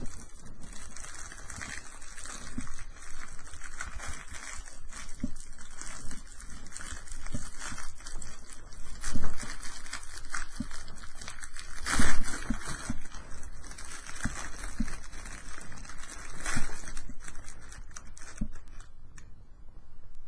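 Clear plastic wrapping crinkling and crackling as it is handled and pulled off breaded veggie patties by hand, with louder crackles about nine and twelve seconds in.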